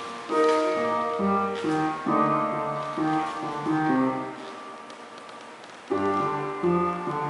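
Solo piano music: chords struck about once a second, with one held chord fading away before a new phrase starts near the end.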